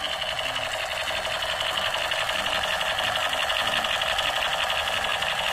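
Battery-powered light-up toy gun sounding its firing effect: a steady, rapid electronic rattle from a small speaker.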